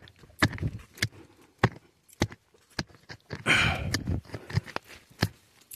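A hand digging tool striking repeatedly into soil threaded with roots, one short knock roughly every half second, with a longer scrape of dirt about three and a half seconds in.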